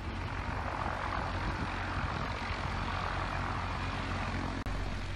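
Steady aircraft noise: a dense rushing hiss over a low hum, swelling slightly in the middle, with a brief dropout near the end.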